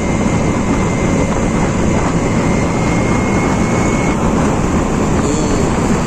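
Steady wind and road noise of a Honda Scoopy scooter being ridden, with a faint thin whine in the background that stops about four seconds in.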